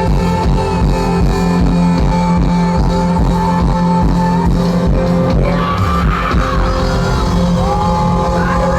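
Live band music with a steady beat over a concert sound system, with a voice joining in about halfway through.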